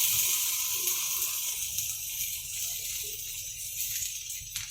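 Ginger-garlic paste sizzling in hot oil in a frying pan with onions and tomato, a crackling hiss that starts loud and gradually dies down.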